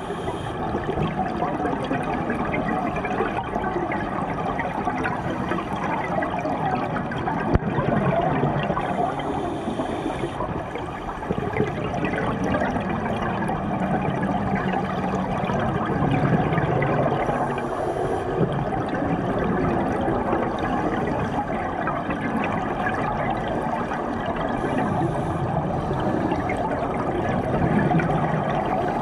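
Underwater bubbling and gurgling of scuba exhaust bubbles from an open-circuit regulator, heard through an underwater camera housing; a continuous churning wash with a brief higher hiss about every eight seconds.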